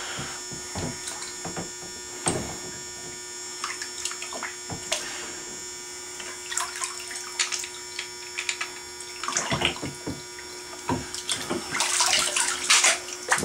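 Scattered knocks and clatters of a pistol being handled and set down in a bathtub, over a steady electrical hum; about twelve seconds in, water starts running into the tub.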